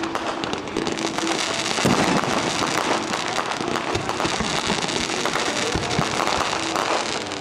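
Fireworks going off in quick succession: a dense, steady crackle of many small pops, with a louder burst about two seconds in.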